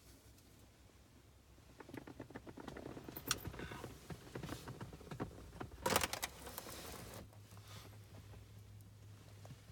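Handling noises: rustling, light clicks and clatter, with a louder knock about six seconds in. A steady low hum starts about seven seconds in.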